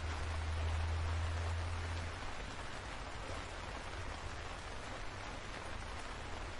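Steady rain falling on leafy trees, an even hiss of many drops. A low rumble sits underneath and is strongest for about the first two seconds before it eases.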